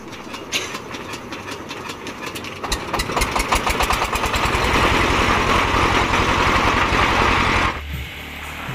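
Single-cylinder diesel engine of a rice huller being hand-cranked with an even beat. After about two and a half seconds it fires and picks up speed with a fast knocking exhaust beat, then runs loud. Near the end the sound cuts off abruptly to a quieter, lower hum.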